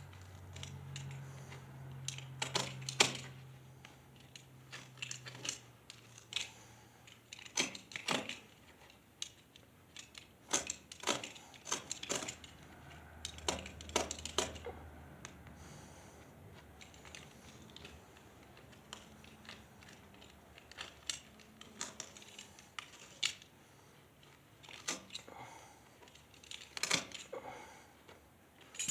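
Scattered metallic clinks, clicks and knocks, some in quick clusters: metal hardware such as anchors, brackets and screws being handled and fitted, with the loudest knock about 3 seconds in. A faint low hum runs under the first several seconds.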